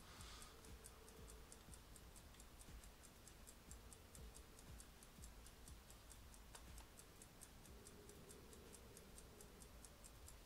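Near silence with a faint, steady, rapid mechanical ticking, about five ticks a second, like a clock or wind-up timer in the room.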